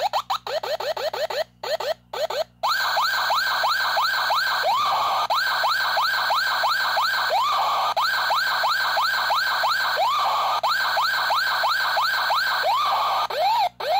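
Circuit-bent toy fire truck siren sampled into a PO-33 K.O! pocket operator and sequenced as a rapid loop of falling electronic siren yelps, several a second. The loop is choppy with short gaps at first, then runs as a dense steady pattern and breaks up again near the end.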